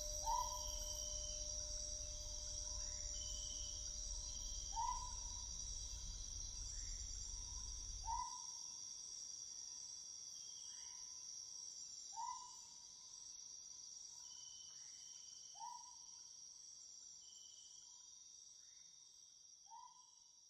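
Rainforest night ambience: a steady high-pitched insect chorus with a short swooping call repeating about every four seconds, all slowly fading out. A low hum and a faint steady tone underneath stop about eight seconds in.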